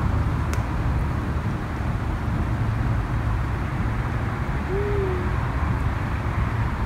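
A steady low rumble, with a single short, low-pitched call that dips slightly about five seconds in.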